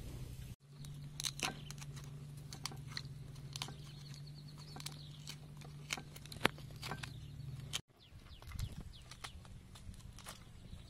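Wet crunching and scraping as ripe pineapple flesh is gouged out of a hollowed pineapple shell with a wooden scraper, a run of sharp clicks and crunches over a steady low hum. About eight seconds in, a knife cuts into a whole pineapple, with softer crunches.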